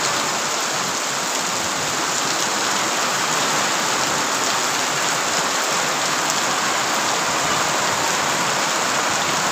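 Rain falling steadily on open ground, an even, unbroken hiss.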